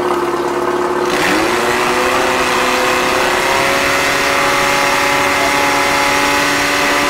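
Portable fire pump engine running at high revs; about a second in its pitch climbs and settles higher as it comes to full throttle, and a loud rushing hiss joins it and holds steady.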